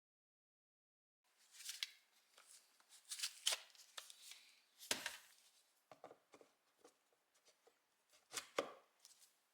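Quiet handling noise: scattered clicks, knocks and short rustles, as of something being picked up and moved about, with a few sharper knocks. No motor is running.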